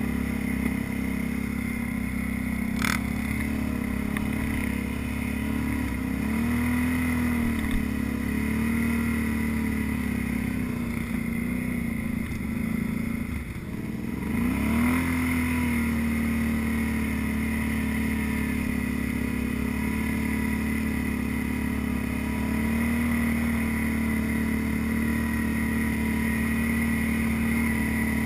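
ATV engine running under way at a steady pace, its pitch wavering with the throttle. About halfway through it eases off for a moment, then picks back up. A single sharp click comes about three seconds in.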